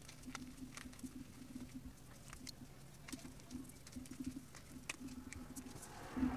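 Reformed gym chalk crumbled between the fingers: scattered fine crackles and soft crunches as chalk bits break and fall onto loose powder. A louder crumbling rush comes near the end.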